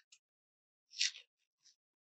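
Washi tape being peeled off watercolor paper: a few short, faint crackles, the loudest about a second in.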